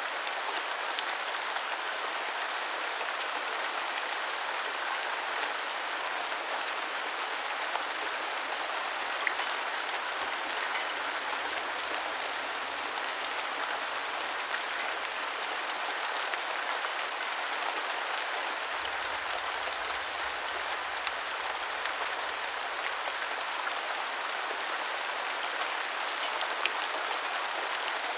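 Steady rain falling, an even hiss with scattered drop ticks. A faint low rumble joins in for a few seconds past the middle.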